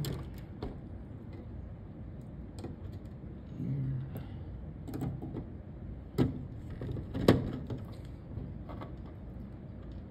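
Small screwdriver working terminal screws on a fire alarm panel's circuit board while wires are handled: a scatter of sharp clicks and knocks, the loudest about six and seven seconds in.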